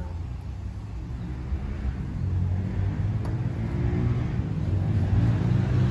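A motor vehicle's engine running, a low hum that grows steadily louder from about two seconds in.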